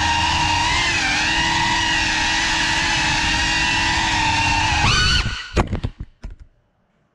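Geprc Cinelog35 cinewhoop's brushless motors and propellers whining steadily at a near-constant pitch. About five seconds in the pitch jumps up, then a few sharp knocks as the drone crashes, and the motors cut out to silence near the end.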